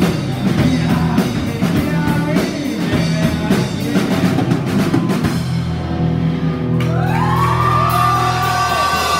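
Live rock band of drum kit, guitar and bass playing. About five seconds in the drums stop and a chord is held ringing, with long high bending notes over it: the song's closing chord.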